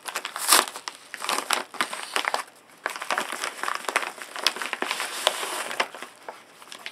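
Bubble-lined paper mailer (aroFOL Classic) crinkling and crackling as hands tear open its taped flap and rummage inside it, in quick irregular crackles with a short pause a little before halfway.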